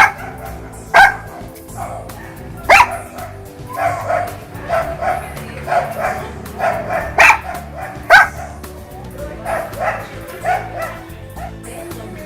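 Puppy yipping and whining in a string of short, high-pitched calls, a few sharper loud yelps among them, over background music.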